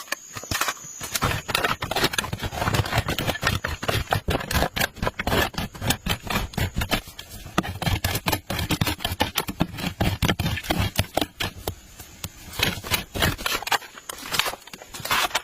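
Rapid, irregular scraping and knocking of a hand tool working material, the strokes coming several times a second with a short lull near the end.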